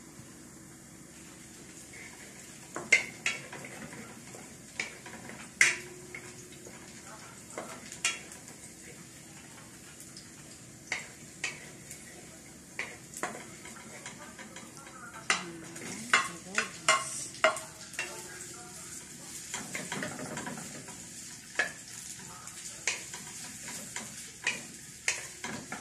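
Oil sizzling steadily in a wok as food fries, with a wooden spatula stirring and knocking sharply against the pan again and again, most often in a run about two-thirds of the way through.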